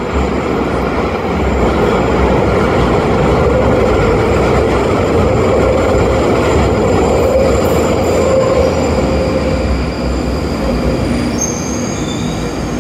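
London Underground Northern line 1995 Stock tube train running into the station and slowing alongside the platform: a loud, steady rumble and rush of steel wheels on rail. High wheel squeals start near the end as it brakes.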